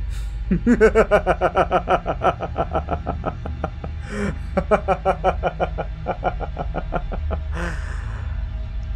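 A man's long villainous laugh in two bouts of rapid 'ha-ha-ha' pulses, about six a second, with a sharp breath drawn in before each bout and another after the second. A low droning music bed plays underneath.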